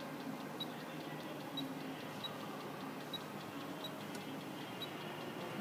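Faint, sharp ticks repeating evenly a little more than once a second over a low steady background: the pulses of a Baker surge tester firing into a 10 hp, 460 V motor winding during a partial discharge voltage test.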